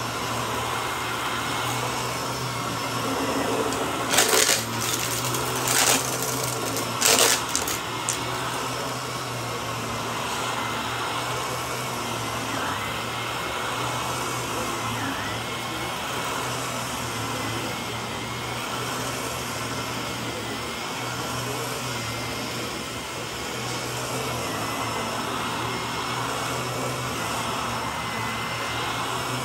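Bagless upright vacuum cleaner running steadily over a shag rug, its motor making a constant hum with a wavering high whine. Three short, loud crunching rattles come about four, six and seven seconds in as debris is sucked up through the brush head.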